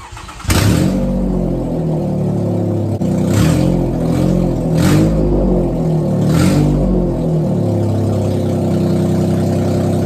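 2004 Toyota Sienna's 3.3-litre V6 running with its catalytic converter out and the exhaust disconnected, loud through the open pipe. It comes in suddenly about half a second in, is revved three times, then settles into a steady idle.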